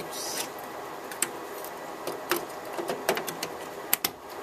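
RAM sticks being pressed into a server motherboard's memory slots, giving a series of short plastic clicks as the modules seat and the slot latches snap shut. The sharpest double click comes near the end.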